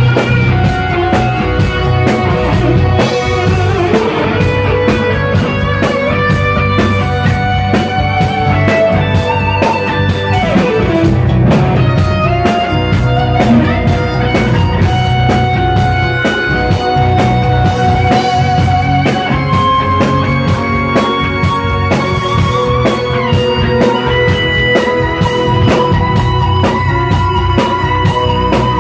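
Live instrumental rock: an electric guitar plays a lead melody of long held notes with vibrato, one sliding down in pitch about ten seconds in, over a steadily played drum kit.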